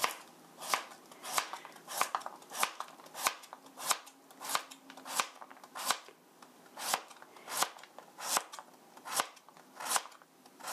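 Kitchen knife slicing carrot on a cutting board: about fifteen even, sharp chops, roughly one and a half a second, each blade knocking on the board as a slice comes off.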